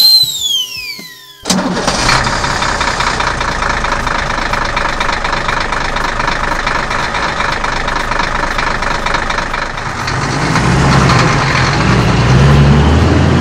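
Truck engine sound effect: it starts abruptly about a second and a half in and runs steadily, then revs up with rising pitch near the end as the tanker pulls away. A short falling whistle-like effect sounds at the very beginning.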